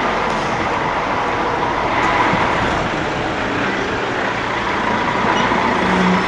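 Steady road traffic and vehicle engine noise, an even rush that holds at one level with a faint steady whine in it.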